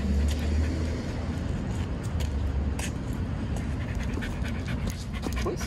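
Irish wolfhound panting as it walks on the leash, over a low rumble that comes and goes.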